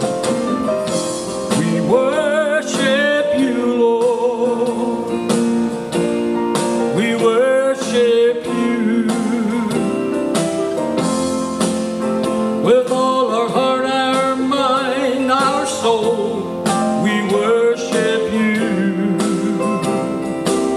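Music: the instrumental break of a country-gospel worship song, with guitar and a wavering lead melody over a steady beat.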